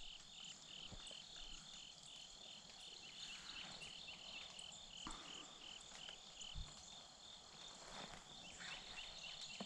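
Faint, steady chirping of crickets in a field, about three chirps a second, fading a little midway and picking up again near the end, with a faint soft thump about two-thirds of the way in.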